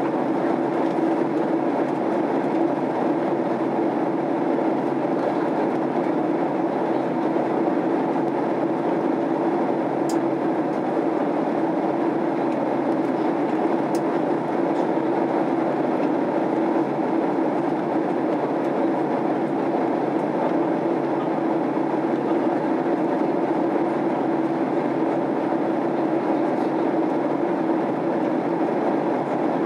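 Steady cabin noise of a Boeing 767-300 airliner in flight, heard from a rear seat: engine and airflow noise with a low hum, unchanging throughout.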